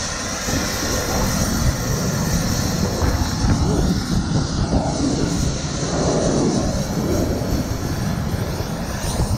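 Helicopter engine and rotor running, a steady loud din with a dense low rumble.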